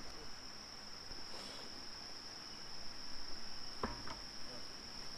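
Insects trilling in one steady, unbroken high-pitched tone, like a cricket chorus. A sharp knock comes about four seconds in, with a lighter one just after.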